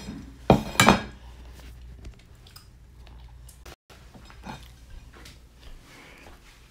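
Two sharp clinks of utensils against dishes, about half a second apart near the start, then faint scattered clicks of kitchenware being handled.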